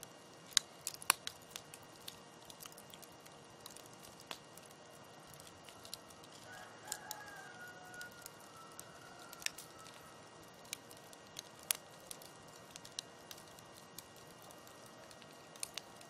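Wood fire crackling: sharp, irregular pops and snaps over a faint steady hiss. From about six to ten seconds in a faint drawn-out tone sounds, sliding slightly down in pitch.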